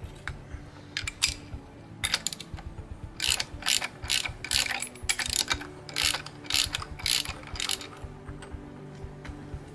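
Socket ratchet clicking in repeated back-and-forth strokes, spinning a valve cap off a Blackmer gas compressor: a couple of short runs about a second in, then a steady series of strokes, about two a second, for some six seconds.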